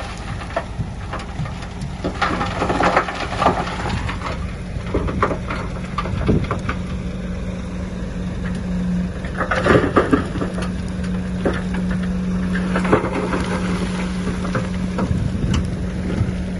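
Diesel engine of heavy earthmoving machinery running steadily under load, with repeated crunching and clattering as soil and stones are pushed and fall.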